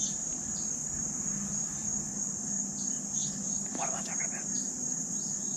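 Steady high-pitched insect chorus trilling without a break.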